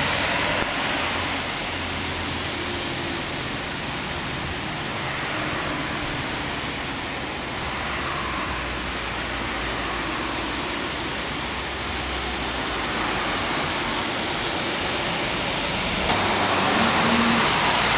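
Road traffic on wet asphalt: a steady hiss of tyres with the low running of bus and car engines beneath, a little louder near the end.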